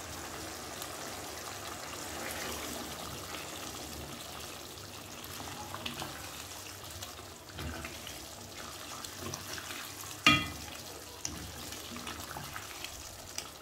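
Thick, creamy butter chicken gravy simmering in a pot and being stirred with a silicone spatula, a soft wet bubbling and scraping. About ten seconds in there is one sharp knock with a brief ring.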